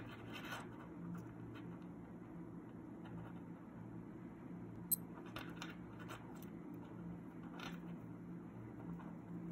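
Fingers handling a Skmei digital wristwatch and pressing its side buttons: faint rubbing and soft clicks, with one sharp click about five seconds in, over a steady low hum.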